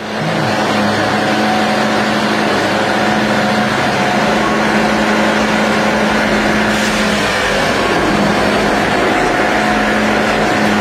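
An engine-driven machine running steadily at high speed, a constant loud drone over heavy mechanical noise that starts abruptly.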